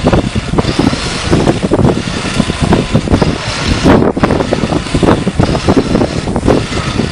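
Loud, gusty wind buffeting the microphone, coming in irregular rushes and crackles.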